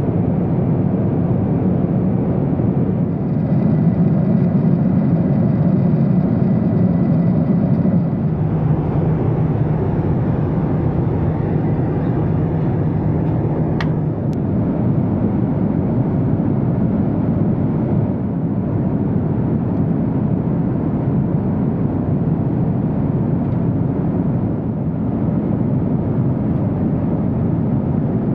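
Steady roar of engines and airflow inside the economy cabin of a Boeing 767-400 in flight, with a low hum holding steady through the middle and a single sharp click about 14 seconds in.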